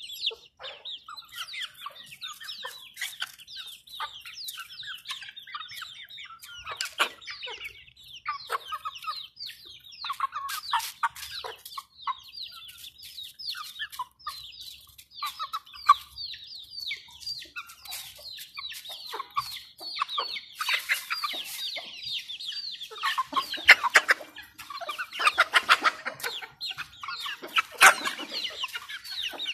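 A flock of young chickens peeping and clucking: many short, high peeps overlapping, with some lower clucks among them and scattered sharp clicks. The calling grows louder and busier in the last third.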